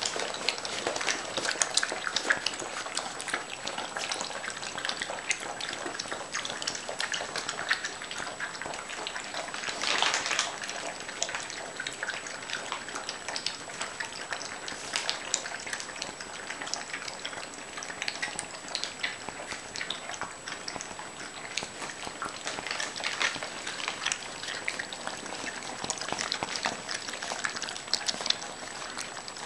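Yellow Labrador Retriever puppies, about five weeks old, eating moist puppy food together from one bowl: a dense, continuous crackle of wet smacking, lapping and chewing.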